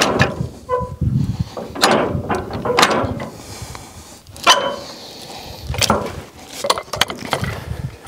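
Steel clanks and clicks from a sawmill's log clamp being set against a log on the mill bed and a steel cant hook being handled. There is a short metallic squeak about a second in and a ringing clank a little after the middle.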